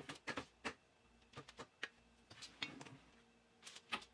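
Halved butternut squash being set down and shifted on a parchment-lined metal baking sheet: a scattered series of light knocks and taps.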